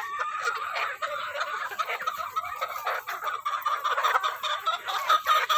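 A flock of young purebred gamefowl chickens calling: a dense chatter of many overlapping chirps and clucks.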